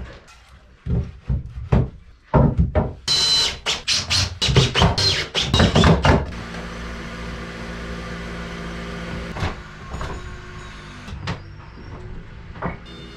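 Several wooden knocks as timber blocks are set in place, then about three seconds of rapid clattering as a cordless drill drives screws into the wood. After that, a steady lower hum with a few faint knocks.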